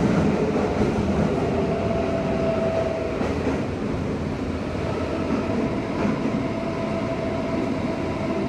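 Tokyo Metro Namboku Line subway train running at speed through a tunnel, heard from inside the car: a steady rumble of wheels on rails, with a faint steady whine that comes and goes.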